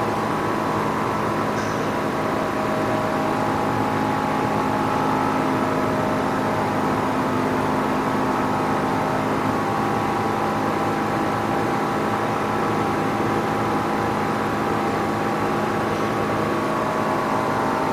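LCD screen separator machine running with a steady mechanical hum and a few held tones.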